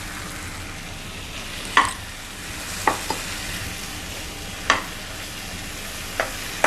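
Onion, capsicum, peas, tomato and spice masala sizzling steadily in butter and oil in a pan while it is stirred, with a ladle knocking against the pan about six times.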